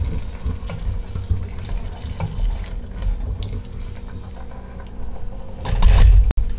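Wooden spoon stirring chunky tomato and onion sauce in a stainless steel pot: wet sloshing and scraping with small knocks against the pot, and a louder low thump near the end.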